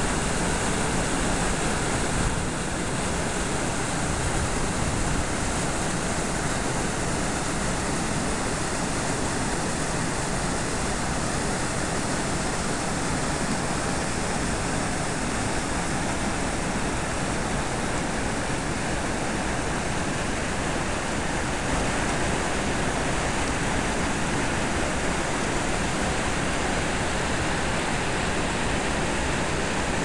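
Mountain river rapids rushing and cascading over granite boulders: a steady, loud rush of white water.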